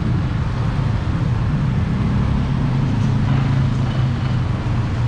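Steady low rumble of wind buffeting the action camera's built-in microphone, mixed with road noise, while a mountain bike is ridden along a wet street.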